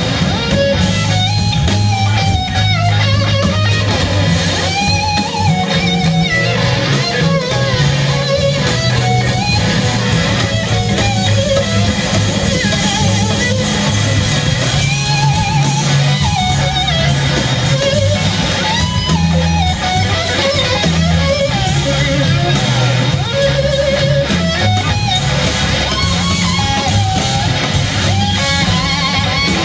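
Live rock band playing an instrumental passage: a lead electric guitar carries a melody of wavering, sliding notes over bass and drums, heard from the audience in the hall.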